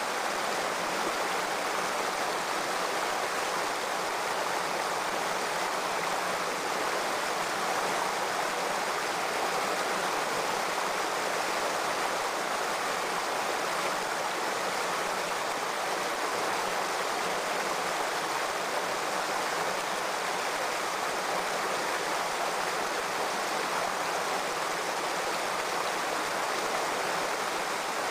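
Shallow stream flowing over rocks: a steady, even sound of running water.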